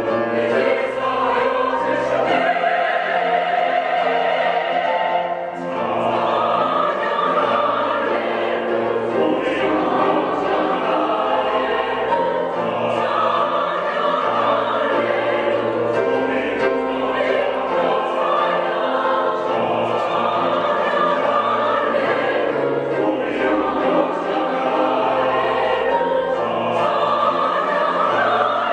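Church choir singing a hallelujah anthem with instrumental accompaniment, sustained and full.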